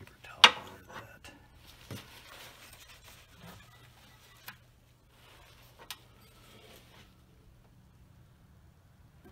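Handling noise as an oil catch can is unmounted from the engine bay: a sharp click about half a second in, then scattered lighter clicks and knocks of fittings and the can, with a shop rag rustling, over a low steady hum.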